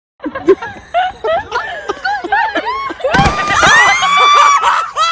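People shouting and laughing in short excited calls. About three seconds in there is a sudden thump as a horse slips and falls with its rider on wet concrete, followed by a long, high scream.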